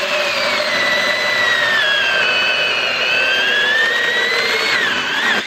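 Black & Decker Alligator Lopper electric chainsaw cutting through a log: a loud, steady motor-and-chain whine that sinks in pitch under the load of the cut. The pitch climbs back toward the end and the sound then stops.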